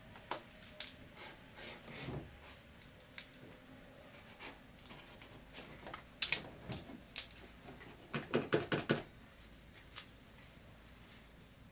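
Pencil and hands working on paper on a wooden drawing board: scattered short scratches and taps, with a louder stroke about six seconds in and a quick run of about six strokes a little after eight seconds.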